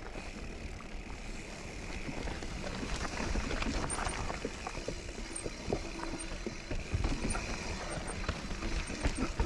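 Kona Process 153 full-suspension mountain bike ridden down rooty, rocky singletrack: steady tyre and trail noise with a running rattle of the bike and frequent knocks and thumps over bumps.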